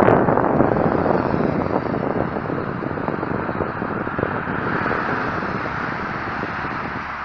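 Steady road-traffic noise from cars and vans driving on a dual carriageway, mostly tyre and engine rush. It eases slightly over the seconds, with one vehicle swelling past about five seconds in.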